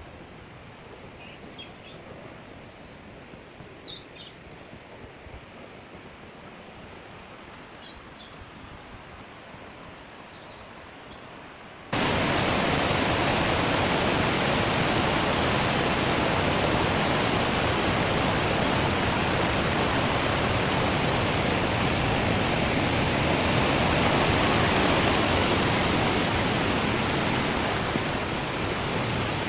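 Quiet forest ambience with a few brief bird chirps. About twelve seconds in, it switches suddenly to the loud, steady rush of a mountain stream cascading over mossy boulders.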